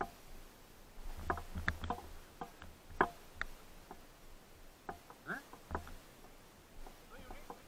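Faint scattered clicks and knocks from a helmet-mounted camera being jostled, with irregular low rumbles of wind on its microphone. The sharpest knock comes about three seconds in.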